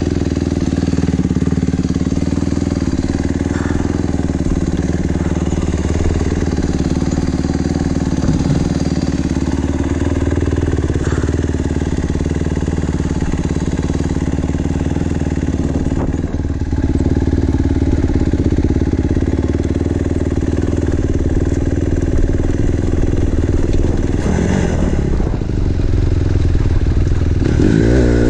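Small four-stroke single-cylinder dirt bike engine running steadily while riding, its pitch shifting a little and rising as it revs up near the end.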